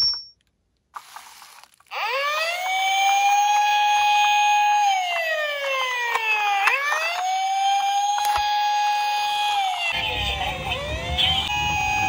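Electronic siren of a toy police car, starting about two seconds in: a wail that rises quickly, holds, then slowly falls, heard twice. Near the end a low rumble joins and the siren tones overlap in a new pattern.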